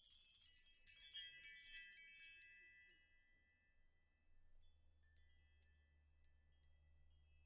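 Bright, high-pitched chime tinkles, like a glockenspiel or wind chime, with a dense cluster of ringing notes in the first few seconds. A few sparse single tinkles follow later.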